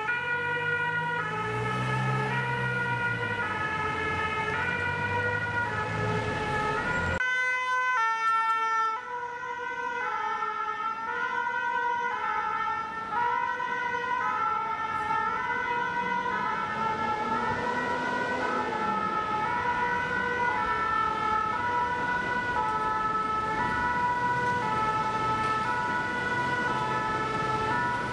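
Two-tone 'pin-pon' siren of Paris Fire Brigade emergency vehicles, alternating steadily between a higher and a lower note. A vehicle's engine is heard passing close by in the first seconds, then the sound cuts abruptly and the siren carries on.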